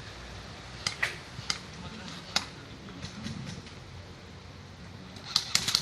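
Airsoft guns firing: a few single sharp shots spread over the first seconds, then a rapid, irregular string of shots near the end.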